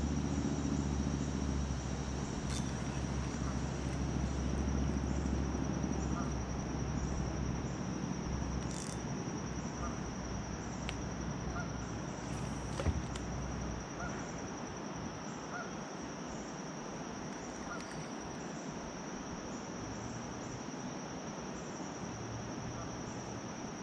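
Insects chirping in a steady, high-pitched pulsing trill, over a low rumble that fades out about eight seconds in, with a few light knocks, the sharpest about thirteen seconds in.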